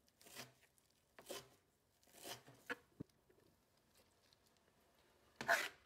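Kitchen knife chopping fresh dill on a plastic cutting board: a few soft, irregular cuts with one sharper click, then a louder short noise near the end.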